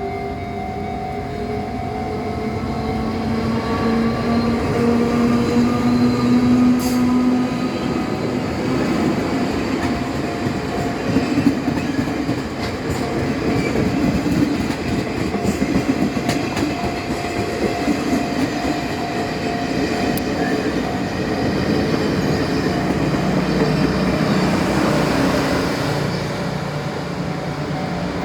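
Chu-Kuang Express passenger train, an electric locomotive with a diesel locomotive coupled, running on the rails with a steady rumble. A machine whine rises in pitch over the first eight seconds or so, and a few sharp clicks come from the wheels on the track.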